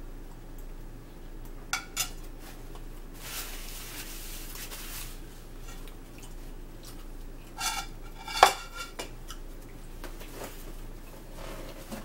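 Metal fork clinking and scraping on ceramic plates, a few scattered clinks, then a cluster of sharp ringing clatters about eight seconds in as a plate with its fork is handled and set aside.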